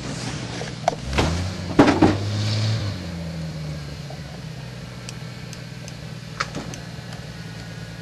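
Off-road pickup truck's engine revving up about a second in, holding, then dropping back and running steadily at lower revs. A few sharp knocks are heard along the way.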